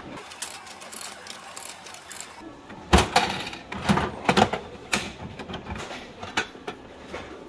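Coins going into a Bandai gashapon capsule-toy machine, then its dial handle turned with a run of sharp ratcheting clicks and clunks, the loudest about three seconds in.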